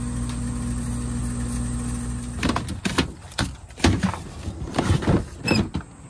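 2012 Carrier air-conditioning condenser running with a steady hum, its compressor and fan on. The hum stops about two and a half seconds in, and a string of irregular knocks and rustles follows.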